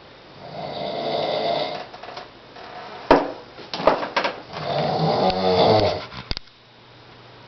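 A man snoring in his sleep: two long snores about three seconds apart, with a few short sharp clicks between them.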